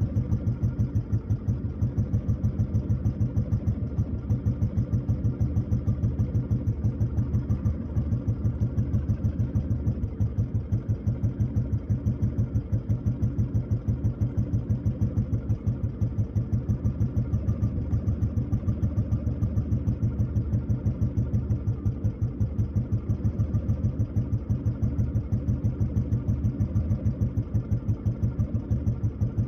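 Royal Enfield Bullet 500's single-cylinder four-stroke engine idling steadily, with an even beat of a few pulses a second.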